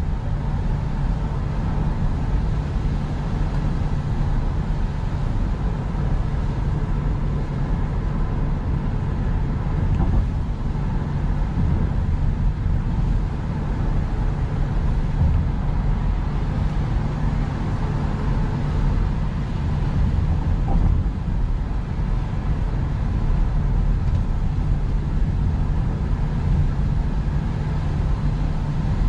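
Steady road and engine noise of a Toyota car cruising on a highway, heard from inside the cabin: a low, even rumble of tyres and engine.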